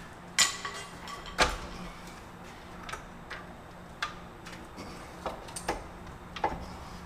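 Hammer blows on steel brake hardware of a truck's S-cam drum brake, beating the brake shoes and their return springs off. There are two loud metallic clanks about half a second and a second and a half in, the first ringing briefly, then lighter taps and clinks.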